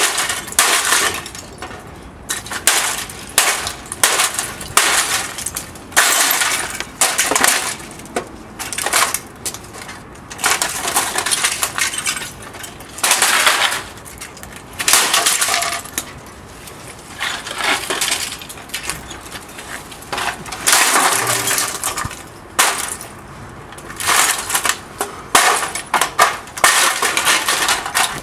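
Repeated hammer blows smashing a broken printer and old mobile phones: plastic casings crack and break at irregular intervals, with glass and loose pieces clinking and clattering.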